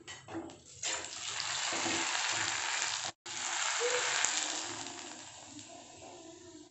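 Corn flakes chips frying in hot oil in a kadai: a steady loud sizzle that swells about a second in, breaks off for an instant midway, then returns and slowly dies down as the chips fry.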